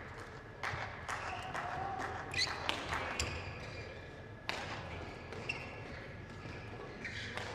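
Court shoes squeaking briefly on the badminton court floor, with a few sharp knocks over the low murmur of a large indoor hall.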